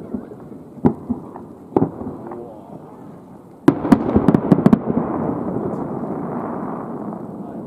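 Aerial fireworks shells bursting: two separate booms about a second apart, then a louder burst with a quick run of sharp crackling reports, followed by a long reverberating tail that slowly fades.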